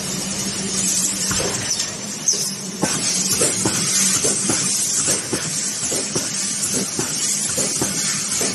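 Automatic wire mesh welding machine running: a steady high hiss and a hum, with repeated knocks about twice a second as the copper electrode heads cycle through their welds.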